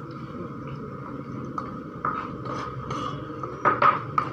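A metal spoon clinks and scrapes against a metal wok, with a few sharp knocks near the end, over the steady hiss of a portable gas stove's burner.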